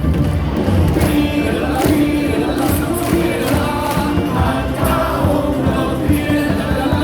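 Stadium loudspeaker music: a cheering song with a steady beat, many voices of the crowd singing along.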